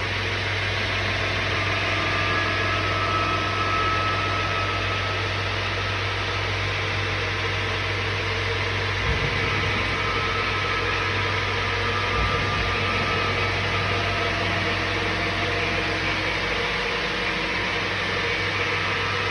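Steady workshop machinery hum under even background noise, with no clear starts or stops.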